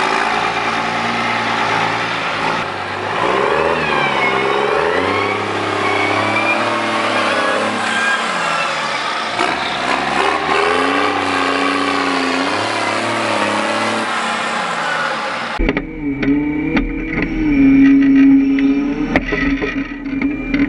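New Holland T6080 tractor's six-cylinder diesel running through an open straight exhaust pipe, revved up and down several times. About two-thirds of the way through the sound cuts to a rougher, steadier engine note recorded close up on the tractor.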